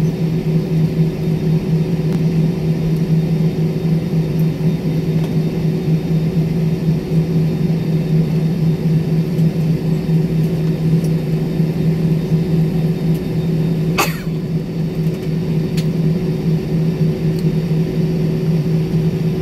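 Steady low drone of an airliner cabin on the ground after landing, with a single sharp click about fourteen seconds in.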